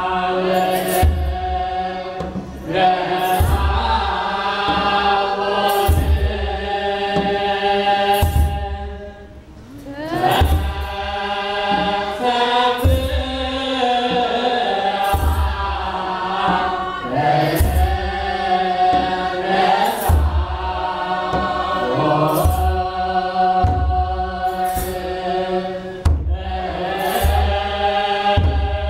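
Group of men chanting an Ethiopian Orthodox hymn together, over large double-headed kebero drums struck about once a second, each beat with a bright click above it. The chant and drums briefly drop away about nine seconds in, then pick up again.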